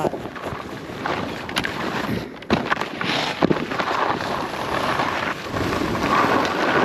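Wind rushing over the microphone of a skier filming while skiing, with the scrape of skis over snow and a few sharp knocks.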